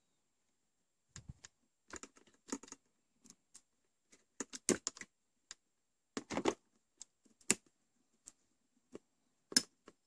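Irregular small clicks and scrapes from fingers working a black plastic clip on a drip coffee maker's heating element. There are a few sharper clicks in the middle and one near the end.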